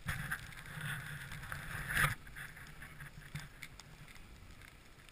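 Dog sled sliding over snow: a steady hiss and scrape of the runners, swelling briefly about two seconds in.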